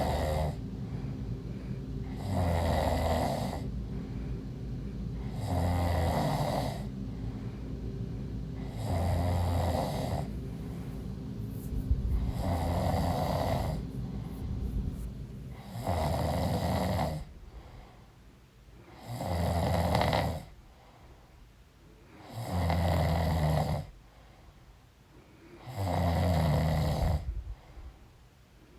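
A pregnant woman snoring in her sleep, a loud snore on each breath about every three and a half seconds, nine in all. A steady background hum underlies the first two-thirds and then stops, leaving quiet between the snores.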